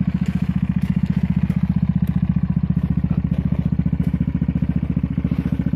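Vehicle engine running steadily at constant speed, a low, even throb of about fourteen pulses a second, with a few faint clicks over it.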